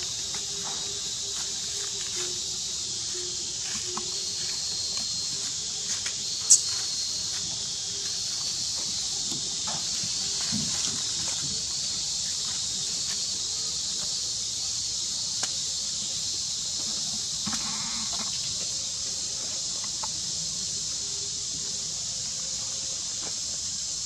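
A steady, high-pitched insect chorus drones without a break, with a single sharp click about six and a half seconds in.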